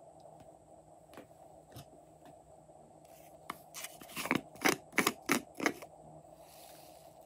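Blue plastic toy container being opened by hand: a quick run of about six sharp plastic clicks and snaps, then a brief soft hiss as its contents are tipped out near the end.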